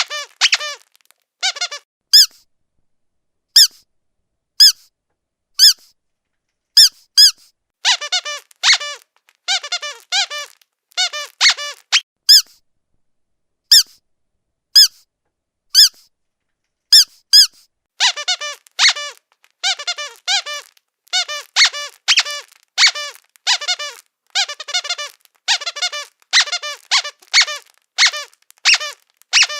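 Squeaky dog toy squeezed over and over. The squeaks come singly, about a second apart, at first. From about a third of the way in, and again through the second half, they come in quick runs of several at a time.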